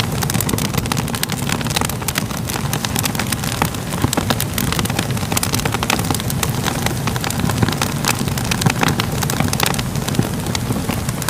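Fire crackling steadily, with many quick sharp pops and snaps over a constant low rumble.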